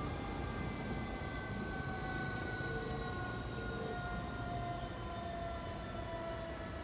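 Jet aircraft engines heard as the plane flies away: a steady rushing noise with several whining tones that slowly drop in pitch.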